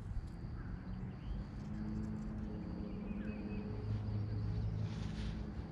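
Outdoor ambience by open water: a low, steady hum that sets in about a second and a half in, with a few faint bird chirps over it.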